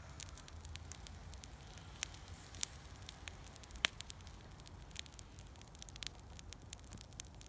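Small fire of burning paper and cardboard crackling, with frequent irregular sharp pops and snaps; the loudest snap comes about halfway through.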